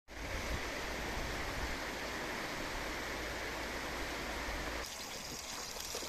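Fast, shallow mountain river rushing over stones and small rapids: a steady rush of water. About five seconds in, the sound changes abruptly to a brighter, hissier rush.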